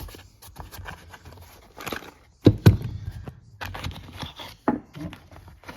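Old motorcycle tool kit being opened and its metal hand tools handled: a run of clicks, clinks and knocks, with the loudest knock about two and a half seconds in.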